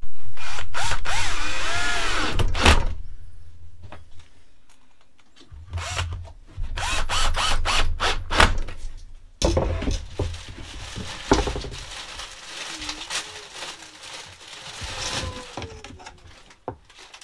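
Cordless drill-driver running in three bursts, its motor pitch rising and falling, driving screws into a plywood box, with wooden knocks and handling sounds in between.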